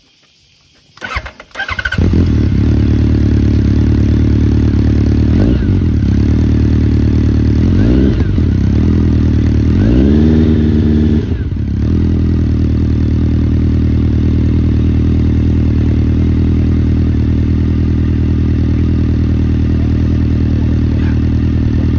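Honda CB1300 Super Four SP's inline-four cranked on the starter about a second in, catching and settling into a steady idle through an aftermarket full exhaust. It is blipped three times, the third rev held longest, then idles on.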